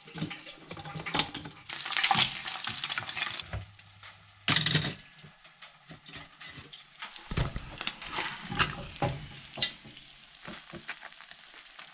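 Kitchen handling noises: bread slices slid into a two-slice pop-up toaster, with scattered clicks, knocks and rustles. There is a louder knock about four and a half seconds in and a dull thud a few seconds later.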